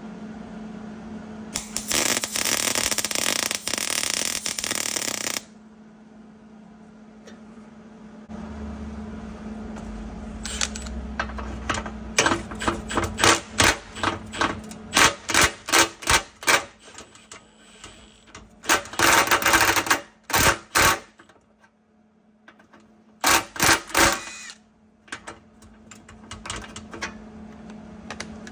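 MIG welder arc crackling as a nut is welded onto a broken stud to extract it. There is one continuous run of about four seconds, then a long series of short welding bursts in quick succession, over a steady low hum.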